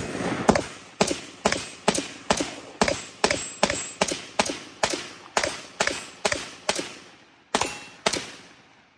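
AR-style semi-automatic rifle firing a rapid string of about twenty shots, two to three a second, each trailing off in a short echo. There is a brief pause before the last two shots near the end.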